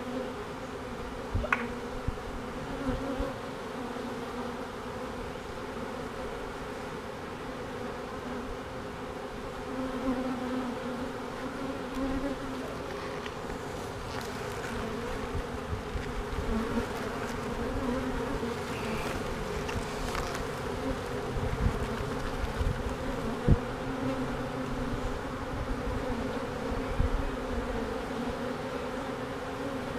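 Honey bees of a newly caught swarm buzzing at a hive entrance: a steady, many-winged hum. A single sharp knock comes about 23 seconds in.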